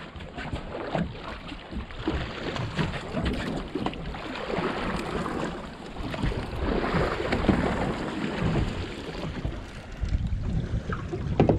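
Wind buffeting the microphone and water slapping against a boat's hull, with scattered knocks and handling noise on deck.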